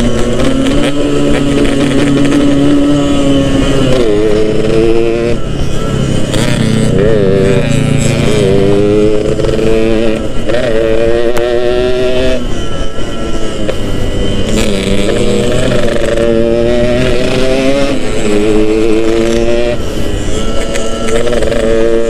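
Yamaha RX-King's single-cylinder two-stroke engine under way, revving up in a string of short climbs in pitch, each breaking off and starting again lower as the rider accelerates and shifts gears.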